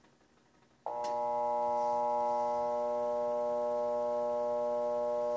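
Electrolux washing machine motor switched on and humming steadily without turning, starting about a second in: the motor tries to run but the drum does not spin, which the technician suspects is a seized mechanism rather than a burnt-out motor.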